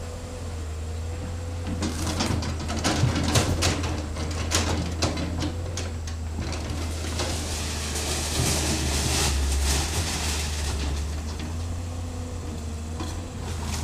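Hydraulic excavator's engine running steadily under a wavering whine, as its bucket tears into a timber house with a corrugated metal roof. Cracking wood and clattering sheet metal come thickest from about two seconds in until about seven seconds, followed by a scraping, hissing stretch.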